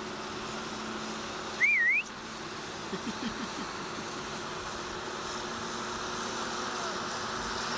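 Crane truck's engine running steadily, holding the boom and basket up at the pole. About two seconds in, one short whistled note wavers up, down and up again above it.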